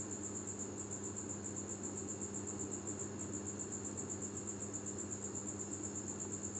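A steady, high-pitched, finely pulsing trill with a low hum beneath it. The scissors cutting the card make no distinct snips.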